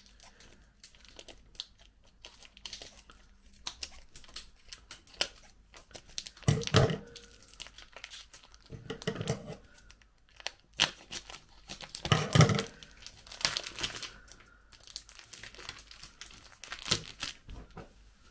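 Food packaging being torn open and crinkled by hand, in irregular crackling bursts. The louder bursts come about 7 and 12 seconds in.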